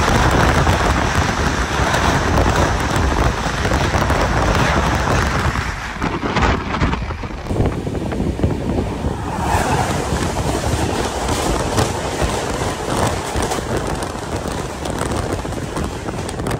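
Express train running at speed: a steady rumble of wheels on track with wind buffeting the microphone. The noise changes character about seven seconds in.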